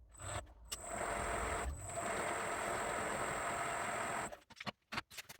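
Ajax universal milling machine running under motor power with a steady high whine. It starts just after the beginning, dips briefly twice, and cuts off after about four seconds.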